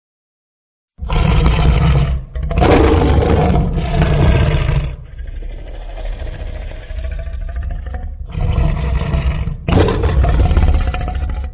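Creature sound effect for a tapiraphant: loud, rough roars that start after about a second of silence. Two long roars come first, then a quieter growling stretch, then two more roars near the end.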